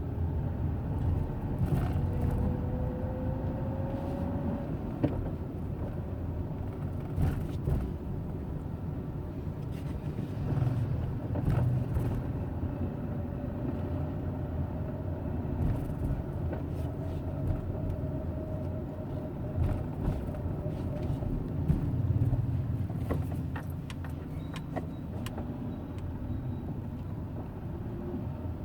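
Hyundai Eon car running under way with a steady low rumble. A whine rises in pitch over the first few seconds and a fainter whine comes back in the middle, with scattered light knocks and rattles.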